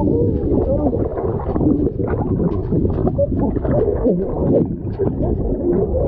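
Underwater sound picked up by a submerged camera: muffled churning water and bubbles, full of short wavering, warbling pitch glides and scattered small clicks.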